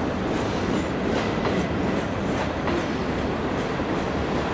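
A train rolling past: a steady rumble of wheels on rail, with irregular clicks as the wheels cross rail joints.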